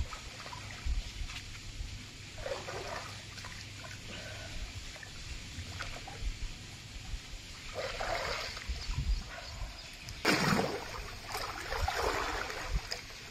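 Swimming pool water splashing and sloshing as someone swims, with a few louder splashes, the loudest about ten seconds in.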